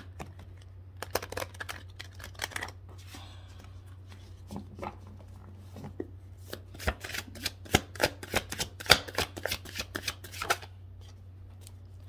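A deck of oracle cards being shuffled by hand: quick runs of flicking card edges, a short bout about a second in and a longer, louder bout from about six to ten and a half seconds. A steady low hum lies underneath.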